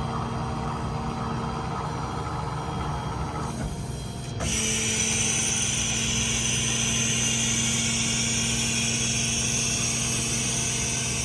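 Steady mechanical hum of running machinery, joined about four and a half seconds in by a loud, steady hiss.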